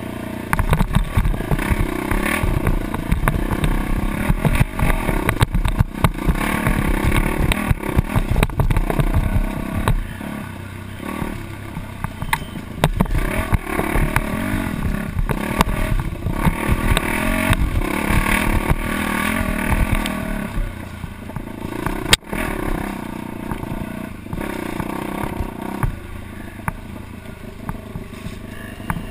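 Dirt bike engine revving up and down while riding a rough trail, heard from the rider's helmet, with many small knocks from the bumpy ground and a single sharp knock about three-quarters of the way through.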